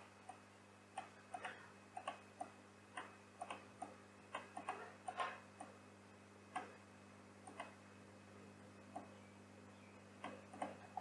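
Computer mouse button clicks, faint and irregular, some in quick pairs, coming thickest in the first half and sparser after. A low steady hum runs underneath.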